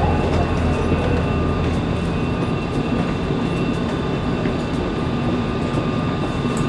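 Inside a commuter train carriage: the steady rumble of the train, with a low hum that eases off about two seconds in and a faint, steady high whine above it.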